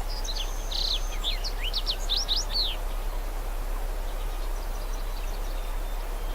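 A songbird sings a rapid twittering phrase of quick chirps and downward sweeps, followed about a second later by a fainter similar phrase, over a steady outdoor background hiss.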